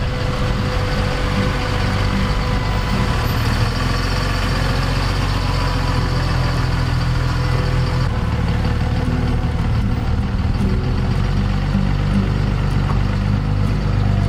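Dodge 2500 pickup's engine running steadily at low revs as the heavy truck crawls slowly over boulders.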